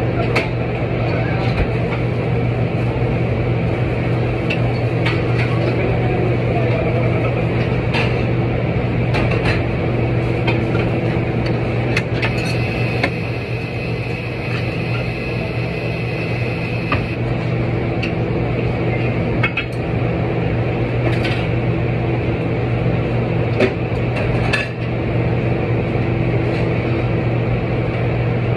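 Kitchen work: a steady machine hum runs throughout, with scattered clinks and knocks of dishes, pans and utensils being handled.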